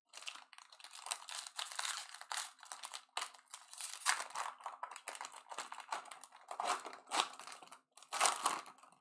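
Foil wrapper of a 2020 Bowman Draft jumbo baseball card pack being torn open and crinkled by hand: a run of crackling rustles, loudest about four, seven and eight seconds in.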